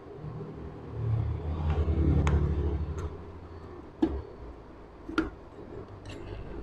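A motor vehicle engine rumbles by, swelling and fading over about three seconds. Over it, several sharp metallic clicks as the aluminium clutch basket of a Honda CG125 engine is handled and seated onto its shaft.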